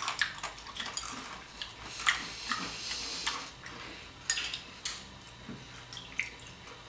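Metal spoon clinking and scraping in a bowl of pretzel sticks in milk as they are eaten like cereal: a scattering of short, irregular clicks with some crisp, crunchy noise.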